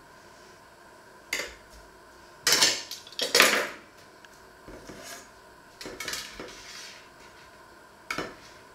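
A metal spatula and knife scrape and clatter against a metal baking tray as slices of sheet cake are cut and lifted out, in about five separate bursts. The loudest is about three seconds in.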